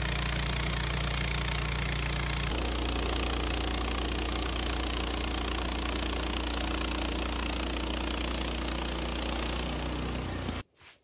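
Woodmizer LT15 Start sawmill running steadily with a low hum; its sound shifts abruptly about two and a half seconds in, then cuts off suddenly near the end.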